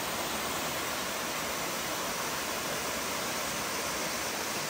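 Beaver Brook Falls, a tall waterfall cascading down a steep rock face, rushing steadily.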